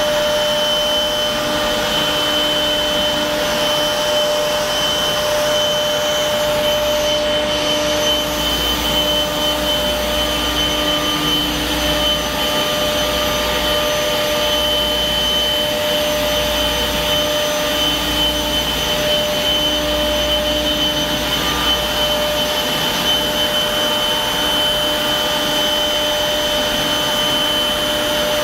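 Industrial blower running steadily: an even rush of air with a constant whine over it, typical of a CNC router's vacuum hold-down pump.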